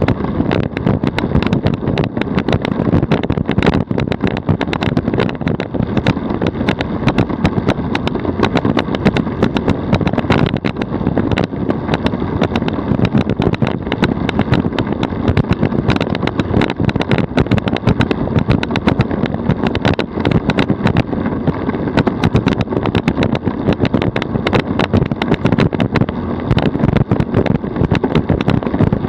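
DF velomobile rolling at about 42 km/h: a steady, loud rumble of tyre and road noise carried through the shell, with constant small rattles and knocks.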